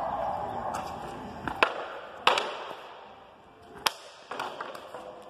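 Sparring sabers clashing with round wooden shields and with each other: a handful of sharp knocks, the loudest about two seconds in and ringing briefly, with lighter taps about four seconds in.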